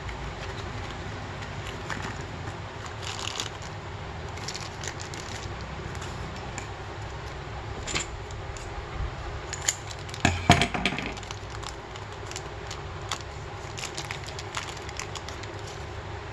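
Parts packaging being handled: a cardboard box opened and a thin plastic bag crinkling as rubber brake cups and a spring are taken out and set on a table, with small scattered clicks. The loudest crinkling comes about ten seconds in, over a steady low hum.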